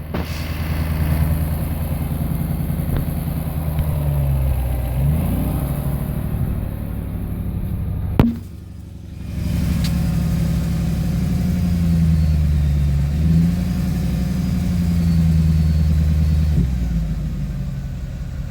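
Mercedes CL63 AMG V8 engine running near idle, with a couple of slight rises in pitch. A sharp click comes a little before the middle, after which the sound drops for about a second before the running resumes.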